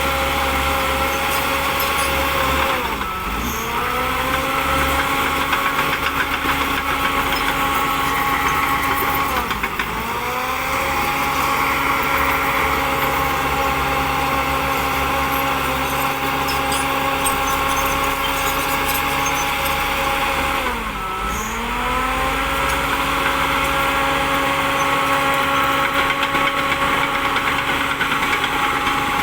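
Diesel engine of a Shantui DH10B2 mini bulldozer running steadily. Three times, about 3, 10 and 21 seconds in, its speed sags sharply and recovers within a second.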